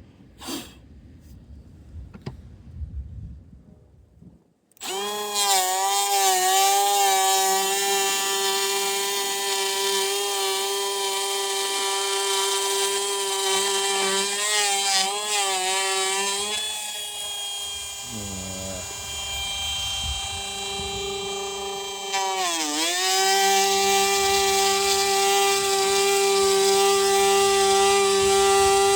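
Electric power tool starting up about five seconds in and running with a steady whine whose pitch wavers, sags and dips sharply once before recovering, as it is loaded by cutting wood.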